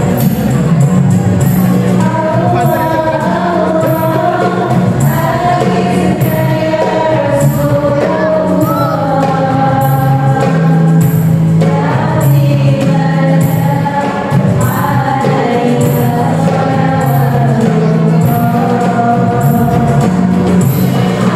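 Sholawat (Islamic devotional song) sung by several voices over electronic keyboard accompaniment, with percussion keeping a steady beat.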